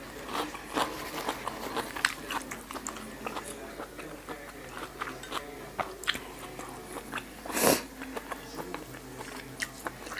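Close-miked chewing of a spicy pork-sausage and crisp lettuce salad: repeated wet crunches and mouth clicks, with one louder, longer crunching noise about three-quarters of the way through.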